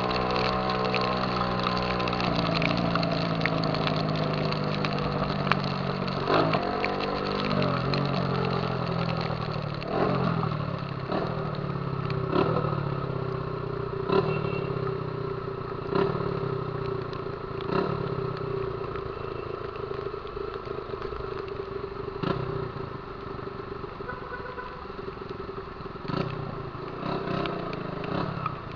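Honda CG 150 Titan's single-cylinder four-stroke engine through a loud Viúva Negra aftermarket exhaust. It runs steadily for a couple of seconds, then the throttle is blipped over and over, each rev dropping back in pitch, about one every two seconds.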